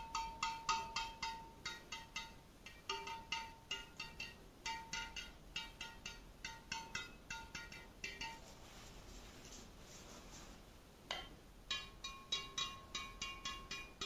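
Badminton racket strings pinged by tapping another racket's frame against the string bed of an Apacs Graphite 999. The taps come in quick runs, each a short, high, ringing ping. There is a quieter pause of about three seconds past the middle, one harder strike about eleven seconds in, then rapid taps again.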